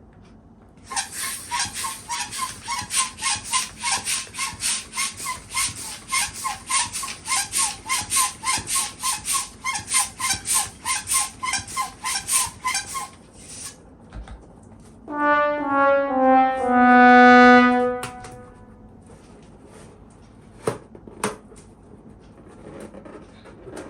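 A balloon being pumped up with rapid strokes of a hand pump, about three hissing pushes a second for some twelve seconds. Then air is let out through the stretched balloon neck in a loud squeal lasting about three seconds, its pitch stepping, followed by two sharp clicks.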